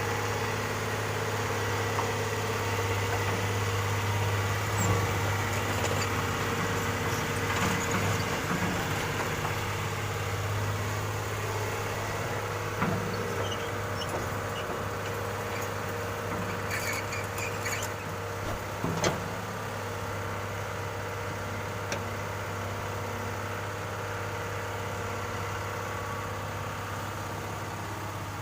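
Excavator's diesel engine running steadily at a low, even hum, with a few sharp knocks from the machine working.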